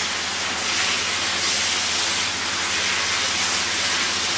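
Food sizzling steadily in hot oil in a pan, a continuous frying hiss that cuts off suddenly at the end.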